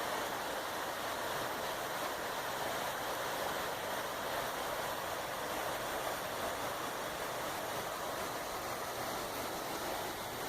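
Creek water flowing steadily, an even rushing sound.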